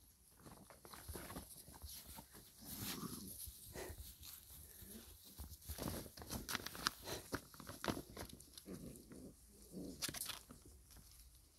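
Six-week-old golden retriever puppies playing: a few short, faint puppy growls and yips among rustling and light clicks as they tumble in the grass and nose around a wire crate.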